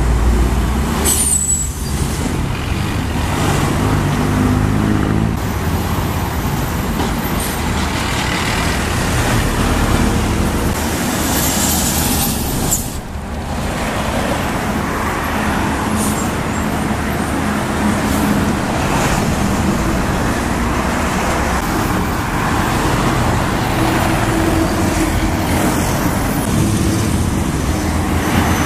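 City buses driving past in road traffic, their diesel engines running, with a short hiss about a second in. Steady traffic noise throughout.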